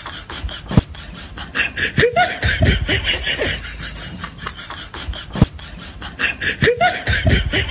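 Snickering, chuckling laughter in short choppy bursts, with a similar laughing passage coming twice, about four and a half seconds apart.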